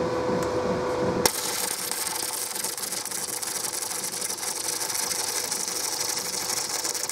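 Flux-core wire welding with a 135-amp inverter welder. A steady hum comes first; about a second in, the arc strikes and settles into a dense, harsh crackle as it burns along the steel plate, throwing a lot of spatter.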